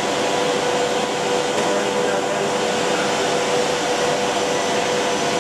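Rotary-head PE film blowing machine running: a steady whir of moving air from its cooling blower and extruder drive, with a steady mid-pitched hum.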